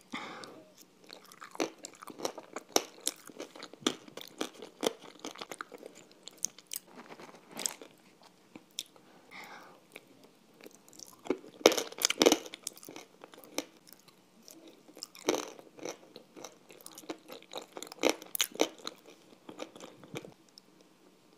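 Close-miked eating: irregular crunching and wet chewing as a thick grey paste is eaten off a spoon, with the loudest crunches about twelve seconds in.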